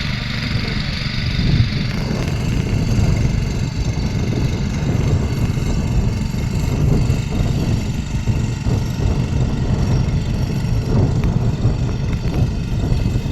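Tractor engine running steadily under load while ploughing.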